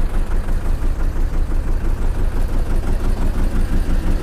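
Fishing boat's engine running steadily, a low throb that pulses evenly several times a second.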